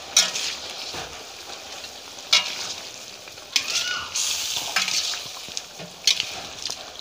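Duck offal sizzling in a metal wok, stirred with a metal spatula that scrapes and knocks sharply against the pan several times.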